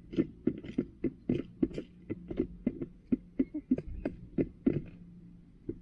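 A hen pecking feed from a plastic feeder tray: a quick, uneven run of sharp taps, about four a second, that thins out near the end.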